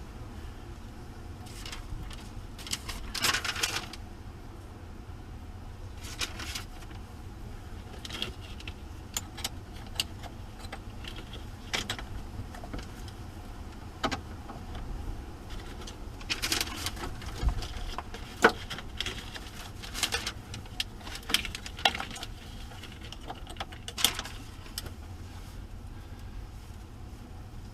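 Irregular metallic clinks, clicks and rattles of tools and hardware being handled while working on motorhome batteries, with a short scraping rattle about three seconds in and a sharper knock about two-thirds of the way through.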